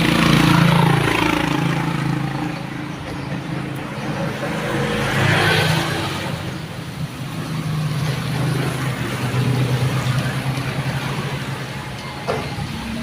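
Motor vehicle engines: a steady low engine hum, with traffic swelling louder about a second in and again around five seconds in.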